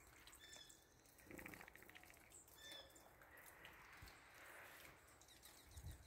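Near silence, broken by a few faint, short high chirps from small birds and one faint distant dog bark about a second and a half in.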